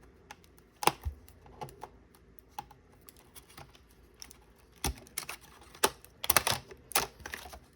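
Scattered plastic clicks and taps as a Compaq V3000 laptop's loose keyboard and cable connectors are handled and unplugged by hand, with a quick run of clicks about six seconds in.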